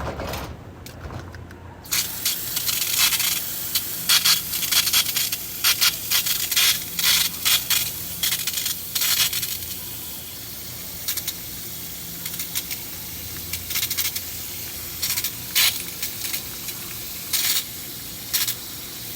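Water spraying and spattering onto metal. It starts about two seconds in as a steady hiss, with irregular sharp pattering and clatter throughout.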